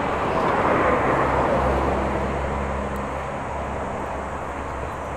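A road vehicle going past: engine and tyre noise that swells to a peak about a second in, then fades slowly, with a faint low engine hum in the middle.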